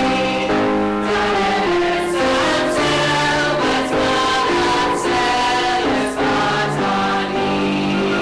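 Mixed choir of women's and men's voices singing an Armenian song in held, sustained notes.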